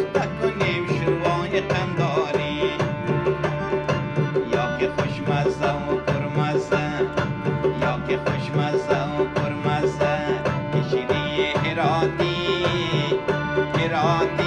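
Background music: an Afghan song carried by tabla drumming with a steady beat, over melodic instruments.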